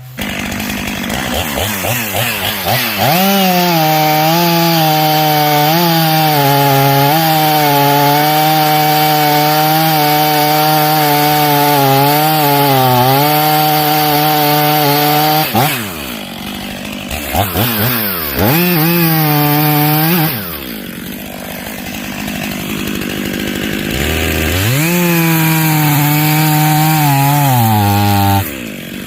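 Chainsaw cutting into a bur oak at full throttle, its pitch dipping and wavering under load. About halfway through it eases off, then revs up twice more, dropping back between the bursts.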